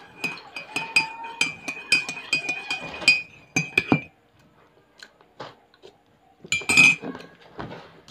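Metal spoon stirring coffee in a ceramic mug, clinking against the sides about four times a second with a ringing note, for about four seconds before stopping. One more, louder clink comes about seven seconds in.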